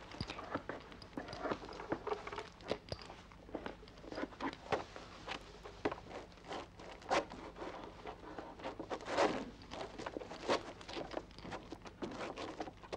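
Leaves and branches of a dense climbing shrub rustling and crackling as several boys scramble up through it, with scuffing footsteps. The crackles are irregular, the loudest about nine seconds in.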